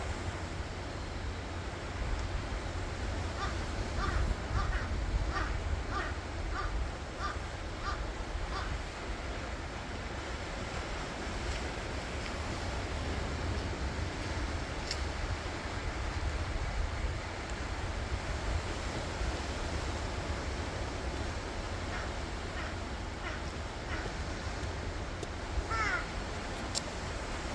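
Steady surf washing on a shore, with a heavy low wind rumble on the microphone. Over it a bird gives a run of short harsh calls, about two a second, starting a few seconds in. A few more calls come later, with a longer call near the end.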